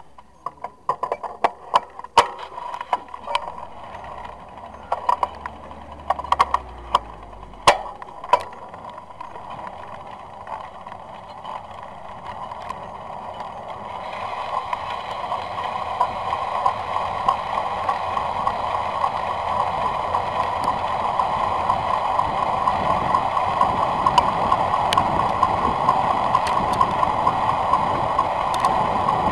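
Road bike setting off downhill, heard from its handlebar camera: a scatter of sharp clicks in the first eight seconds or so, then a steady rushing noise of wind and rolling from about twelve seconds in that grows louder as the bike gathers speed.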